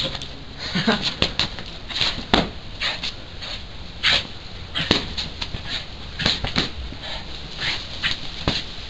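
Dog snuffling at paving stones with its nose: short, irregular noisy sniffs and scuffs, about two a second.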